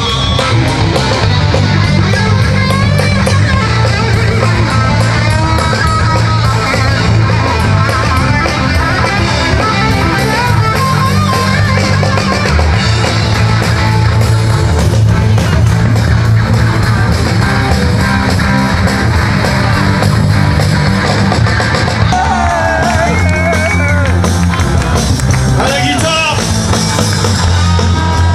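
Rock music with electric guitar, bass and drums, a voice singing over it from about two-thirds of the way through.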